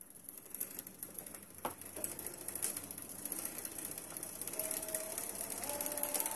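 Currie Electro Drive brushless hub motor, its detached rotor magnets re-glued, spinning up with no rider: a mechanical whirr with light ticking that grows steadily louder. A faint whine rises in pitch over the last couple of seconds as the motor gains speed.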